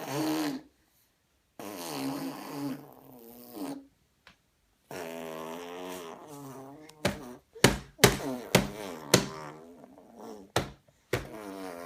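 A baby making a funny vocal sound, drawn out in several stretches with short pauses between them. In the second half it is broken by a run of sharp pops.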